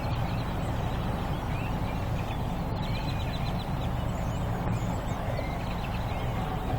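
A large flock of blackbirds chattering, many short chirps and squeaks overlapping, over a steady low rumble.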